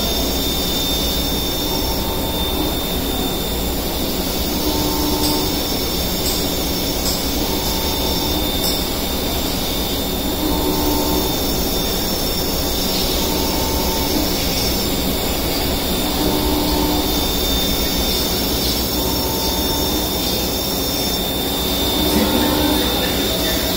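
CNC lathe running, its spindle turning a brass workpiece under the cutting tool: a steady machining noise with a short tone that comes back about every three seconds.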